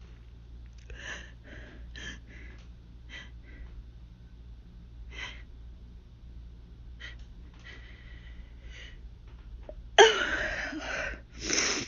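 A person in a hay fever sneezing fit: short faint sniffs and breaths, then a loud sudden sneeze about ten seconds in, followed by a second loud burst of breath near the end.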